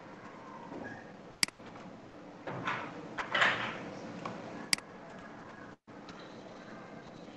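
Two sharp computer mouse clicks about three seconds apart, with a brief rustling noise between them over a faint room background.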